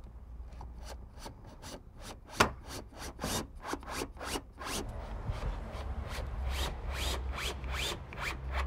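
Cordless drill/driver driving screws into a storm door frame in short stop-start bursts, with rapid irregular clicks and scraping as each screw bites into the frame.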